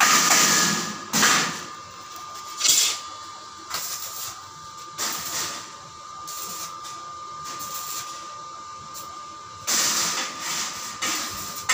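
Stick welding on a steel gate frame: the electric arc crackles and hisses in bursts, loud for about the first second and again near the end, with shorter bursts and quieter sputtering in between.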